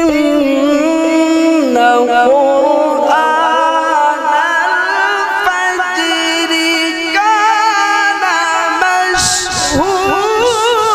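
A man's voice recites the Quran in a melodic tajweed style through a microphone, holding long ornamented notes that step up and down in pitch. About nine seconds in it breaks briefly with a short hiss, and a new phrase glides upward.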